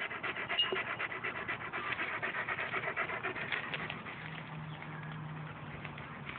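A Russian King Shepherd dog panting rapidly and rhythmically. A steady low hum joins in for the last couple of seconds.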